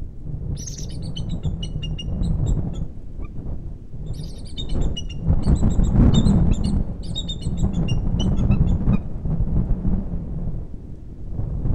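Bald eagles calling in two bouts of quick, high, piping chittering notes, over a steady low rumble of wind on the microphone.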